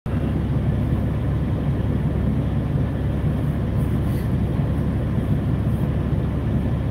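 Steady low rumble of a semi truck idling, heard from inside the sleeper cab.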